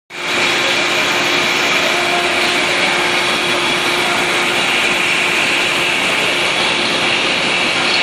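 Rotary 72-head glass bottle washing machine running, its nozzles spraying water over the bottles: a steady hiss of spray over the machine's running noise, with a faint held tone.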